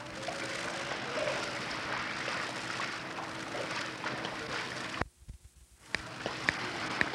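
Swimming-pool ambience on an old home-movie sound track: water sloshing and faint children's voices under steady hiss and a low hum. The sound drops out for about a second some five seconds in, then comes back with a few clicks.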